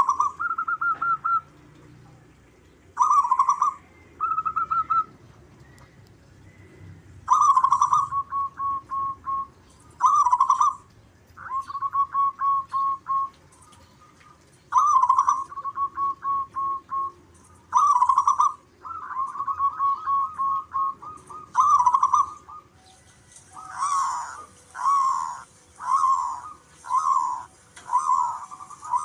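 Zebra doves (perkutut) cooing: repeated phrases of quick rippling notes, one phrase following another after short gaps, as if the birds answer each other. Near the end the calls come shorter, about one a second.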